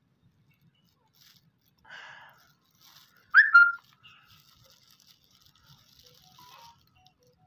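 A German Shepherd yelps once in pain, a short loud cry that falls slightly in pitch, about three and a half seconds in, as maggots are pulled from a wound with tweezers. A brief breathy rustle comes about a second before it.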